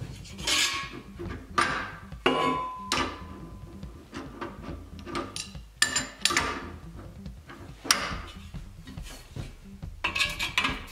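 Breaker bar and a large wrench clanking against the steel nut and rod of a hydraulic cylinder as the nut is tightened. A string of sharp metallic clanks, some ringing briefly, the one about two seconds in ringing longest.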